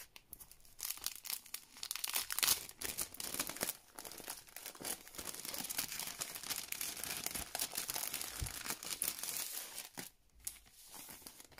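Paper and card rustling and crinkling as a vinyl record's gatefold sleeve is opened and its paper sleeves handled. The sound stops near the end.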